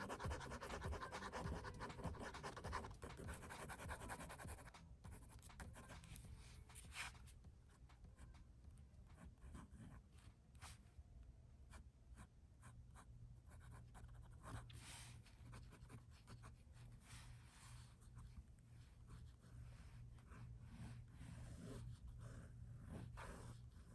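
Faint scratching of a drawing tool on paper, many short, quick strokes as an armadillo drawing is shaded and textured, steadier in the first few seconds and then in scattered strokes.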